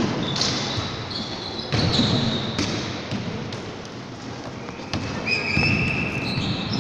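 A basketball bouncing and being dribbled on a wooden gym floor during play, with players' running footsteps and several short high squeaks of sneakers on the court in the second half.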